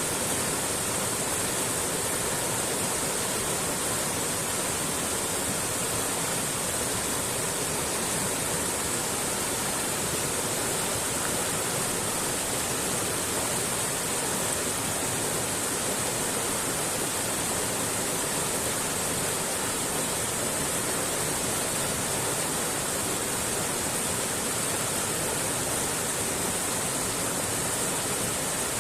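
Mountain stream rushing steadily over rocks, an even hiss of flowing water.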